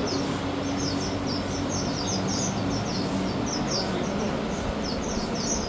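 Small birds chirping rapidly: many short, high chirps overlapping, over a steady low hum.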